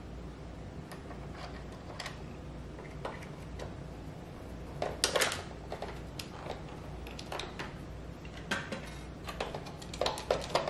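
Light clicks and clatter of a screwdriver against the hard plastic housing of a Roomba robot vacuum as it is being taken apart, with a cluster of sharper clacks about five seconds in and more near the end.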